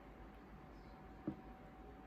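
A single soft knock a little over a second in, over quiet room tone with a faint steady hum.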